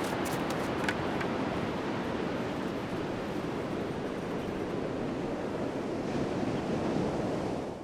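Ocean surf rushing steadily, a continuous wash of breaking waves and whitewater, fading out at the very end.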